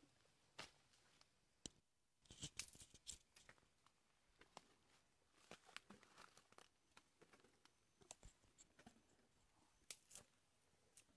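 Faint crackling, tearing and crunching of leaves and twigs as an Asian elephant strips and eats leafy branches, with a dense run of crackles about two seconds in and scattered snaps after.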